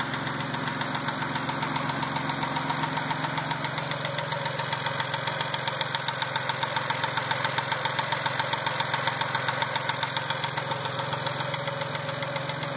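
Mazda engine idling with a loud, rapid, regular ticking-knock, about six beats a second, that gets louder once the engine warms up; the owner says it began after the valve lifters were worked on, pointing to a fault left by that lifter job.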